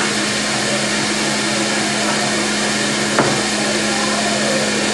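Omega BMJ330 high-speed centrifugal juicer running at speed while juicing watermelon: a steady motor hum under a loud, even rushing noise, with a light click about three seconds in.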